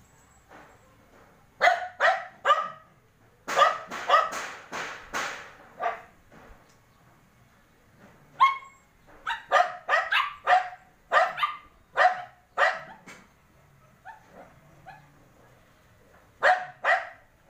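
Dog barking in short bouts of sharp barks: a quick three, a longer run, then a rapid string of about eight, with pauses of a second or more between bouts and two last barks near the end.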